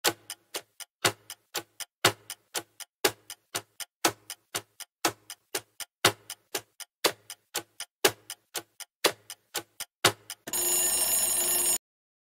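Countdown-timer sound effect: a clock ticking several times a second, with a louder tick on each second, then an alarm ringing for just over a second near the end as time runs out.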